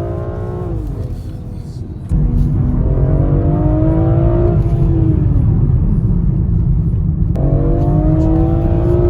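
BMW X3 M's twin-turbo inline-six accelerating hard: its pitch climbs steadily, drops back at each upshift, and climbs again, several times over. A heavy low rumble runs under the engine note.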